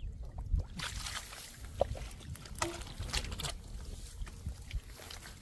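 Splashing and sloshing in shallow muddy water, heaviest for about three seconds from just under a second in, then easing, with a steady low rumble underneath.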